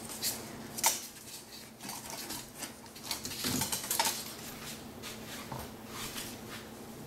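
Duct tape being pulled off its roll and pressed onto cardboard to hold a coat-hanger wire in place, among clicks and knocks from the cardboard and wire being handled. The loudest stretch is a noisy patch of tape work about three to four seconds in.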